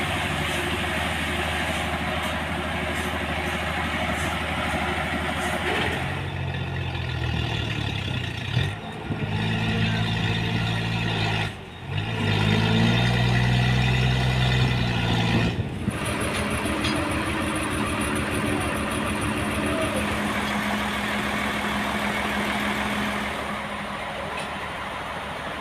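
A heavy engine running, its pitch shifting and gliding up and down in the middle stretch, with several abrupt changes in the sound.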